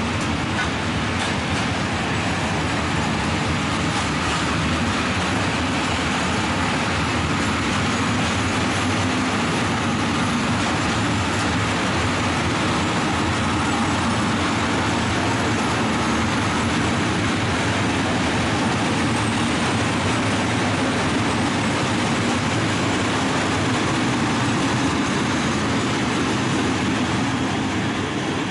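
Freight train of tarpaulin-covered flat wagons rolling past: a steady rumble of wheels on rail.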